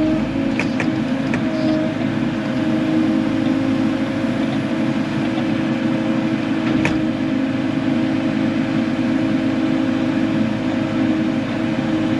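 Kubota KX080 excavator's diesel engine running steadily while digging with a straight-edge bucket. There are a few light clicks near the start and one more about seven seconds in.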